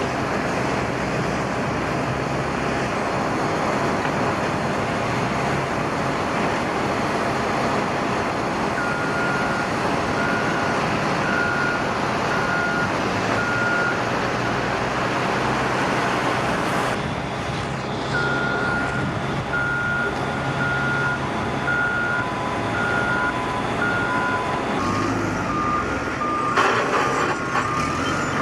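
Heavy construction equipment running, with diesel engines and machinery noise, while reversing alarms beep in steady series of about one beep a second. Two alarms at different pitches overlap in the second half.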